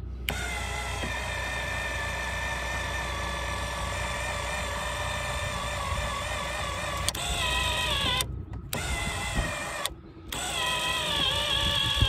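A 12-volt linear actuator motor whines steadily as it swings the ePropulsion Navy 6.0 Evo electric outboard left and right. About seven seconds in there is a click and the whine changes pitch. It then stops briefly twice and starts up again.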